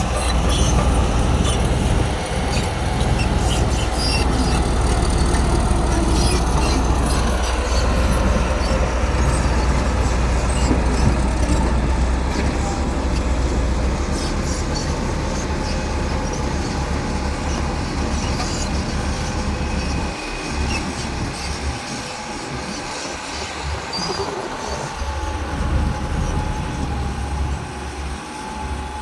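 Bulldozer working under load: its diesel engine runs steadily while the steel crawler tracks clank and squeal. The sound eases somewhat about two-thirds of the way through.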